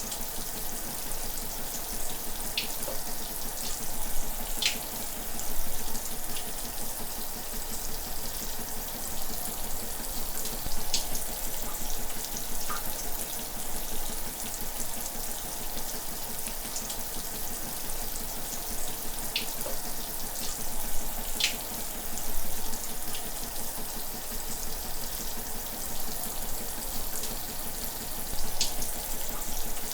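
Shower running steadily: a continuous hiss of water spray with scattered brief splashy ticks of drops.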